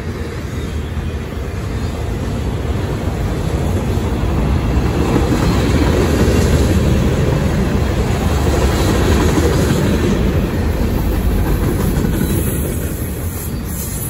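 Freight train's autorack and tank cars rolling past at trackside: a steady rumble and rattle of steel wheels on the rails, swelling a little in the middle.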